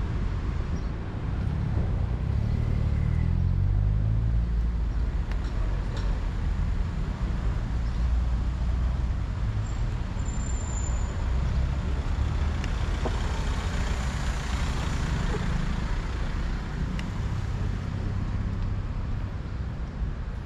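City street traffic: cars passing with a steady low rumble of engines and tyres. In the first few seconds one vehicle's engine rises and falls in pitch as it goes by.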